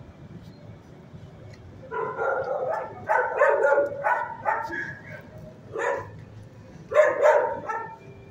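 Dog barking in runs of short barks that start about two seconds in, the loudest cluster near the end.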